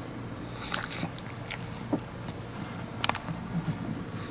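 Pug snuffling through its flat nose, with a few small sharp mouth clicks about one, two and three seconds in.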